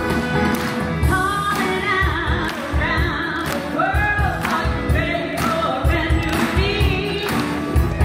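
A woman singing held, wavering notes with a live band of piano, drums and brass. Audience clapping sounds through the music.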